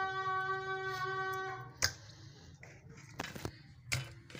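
A steady high-pitched tone with overtones, like a drawn-out animal call, stops sharply about two seconds in. After it come a few short knocks as raw fish pieces are set down one by one in a stainless steel bowl.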